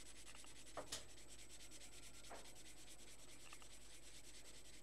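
Faint, steady scratching of a coloured pencil shading on paper, with a couple of light taps.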